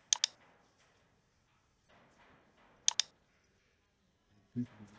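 Computer mouse button clicked in quick pairs: a double-click at the start and another about three seconds in.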